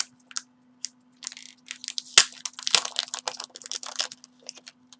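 Packaging crinkling and crackling in a run of irregular crackles, the sharpest about two seconds in, as earbud headphones are pulled from their wrapping.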